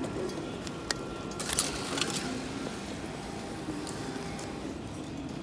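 Train-station ambience at a row of automatic ticket gates: a steady background hubbub with a few sharp clicks and a brief clatter between one and two seconds in.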